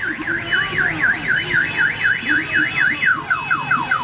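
Electronic siren cycling through its tones: a fast up-and-down warble of about four sweeps a second, switching about three seconds in to a run of quick falling chirps.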